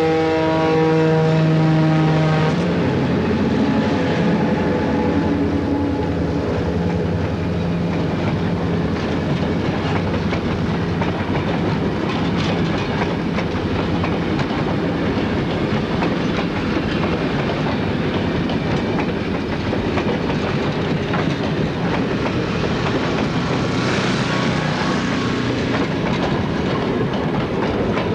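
Ex-CNJ EMD F7 diesel locomotives passing close by with the horn sounding a steady chord that ends about two seconds in, followed by the engines' drone. A long train of passenger coaches then rolls past, wheels clicking over the rail joints.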